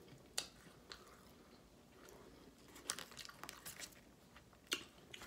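Quiet chewing of a Philly steak sub with a few scattered sharp mouth clicks, and light handling noise as the sandwich is lifted from its cardboard box about three seconds in.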